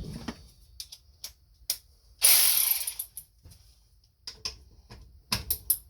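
Ratchet wrench on a bolt: scattered sharp metallic clicks, with one harsher burst of just under a second about two seconds in.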